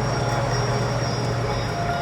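Calm ambient background music: a steady low drone held through a pause between chime-like melodic notes.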